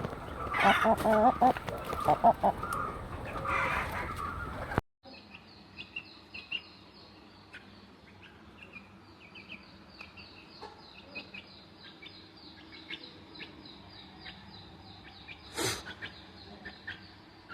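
Chickens clucking and calling, then, after an abrupt cut about five seconds in, a much quieter stretch with scattered faint clicks and short calls.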